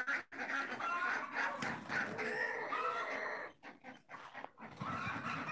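A flock of chickens clucking, short calls overlapping and coming and going, with a brief lull about two-thirds of the way through.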